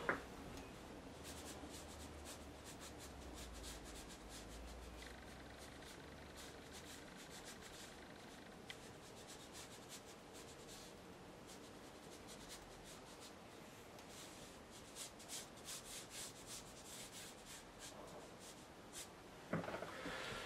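Small watercolour brush stroking and dabbing on textured watercolour paper while painting in a shadow: faint, scratchy brush strokes in short runs, busiest in the middle and again in the last few seconds.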